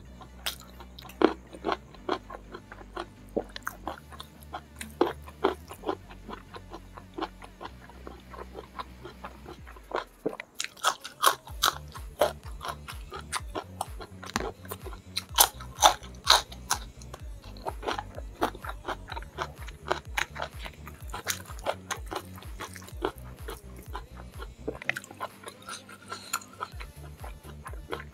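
Close-miked mukbang eating: wet chewing and smacking with many sharp crunches. The crunching grows denser and louder from about ten seconds in, as he eats fish-head curry with raw green chili.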